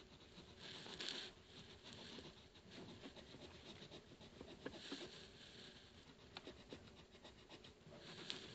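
Faint scratching of a pencil shading on sketchbook paper, in short bursts of strokes about a second in, around the middle and near the end, with small ticks between them.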